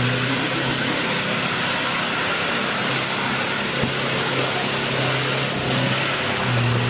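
Off-road 4x4 SUV's engine pulling at steady revs under load as it crawls up over rocks, getting louder near the end, with one brief knock about four seconds in.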